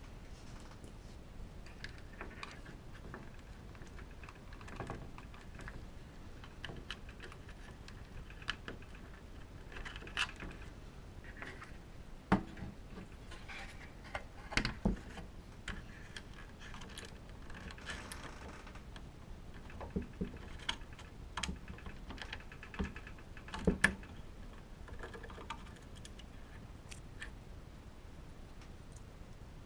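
Irregular light clicks and taps of small parts being handled, with a few sharper knocks, about three of which are the loudest.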